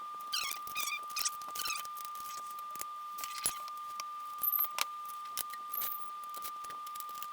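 Small metal hardware and tools clicking and rattling in the hands during assembly of a belt-driven frame, a scatter of short sharp clicks with a few brief jangles. A steady thin high-pitched tone runs underneath.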